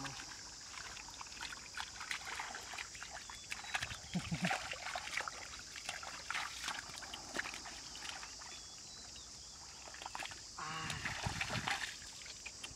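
Hands splashing, sloshing and squelching in shallow muddy water while grabbing catfish out of the mud, with many short irregular splashes.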